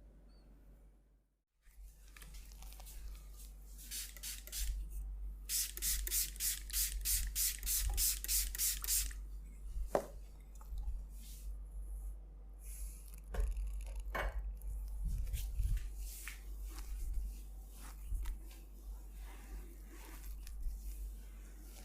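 Hands rubbing, pressing and scraping over skin and hair during a massage, with scattered clicks. For a few seconds in the middle comes a run of quick, evenly spaced hissing squirts, about four a second.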